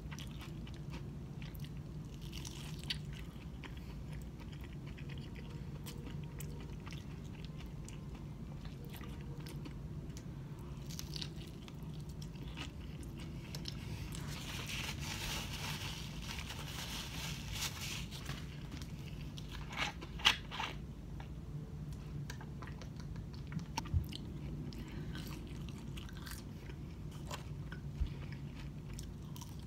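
Close-up chewing and biting of battered fried fish and fries, with crunches and scattered small clicks, over a steady low hum.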